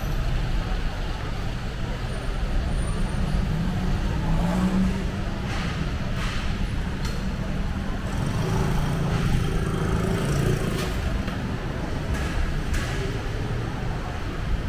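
Urban traffic ambience: cars and a motorcycle running past with a steady low rumble, one engine swelling briefly about halfway through, and voices of passersby.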